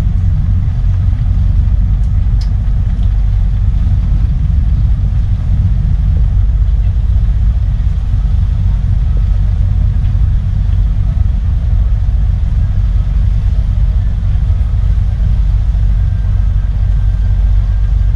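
Fast Cat M9 ferry's engines running with a steady low rumble as its propellers churn the water during a docking maneuver.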